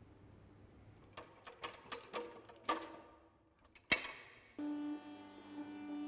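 Metal knocks and clanks from a mobile personnel lift's outrigger legs and frame being set up, ending in one sharp click. Then the lift's electric motor starts abruptly with a steady hum as the mast raises the platform.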